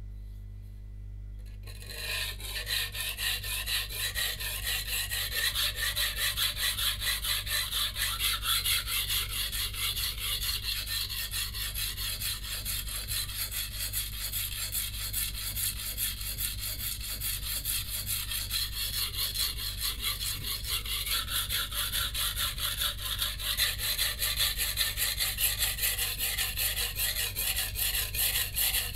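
Santoku blade being stroked back and forth on a wet 180-grit coarse waterstone, a steady rhythmic gritty scraping that starts about two seconds in. This is the coarse first stage of sharpening, grinding down a chipped edge.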